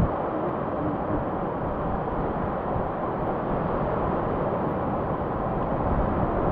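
Steady outdoor noise of wind on a ground-level microphone and surf on a beach, with no distinct events.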